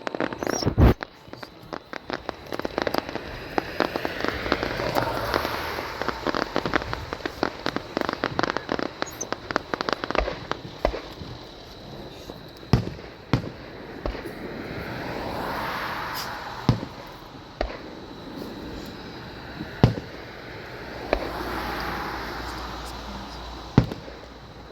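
Fireworks display: a run of bangs and dense crackle in the first ten seconds or so, then sparser, louder single booms spaced a few seconds apart.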